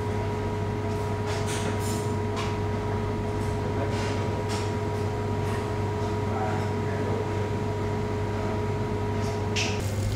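A steady machine hum with a low drone and a thin whine, and scattered light knocks and clinks; the whine stops just before the end.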